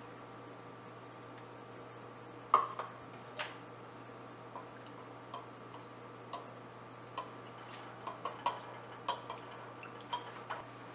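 Metal spoon clinking against a ceramic bowl while stirring custard powder into milk: irregular sharp clinks beginning about two and a half seconds in, the first the loudest, over a faint steady hum.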